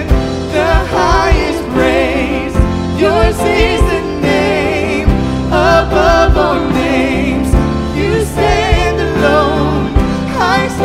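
Christian worship song: singing voices with vibrato over instrumental backing and a low beat.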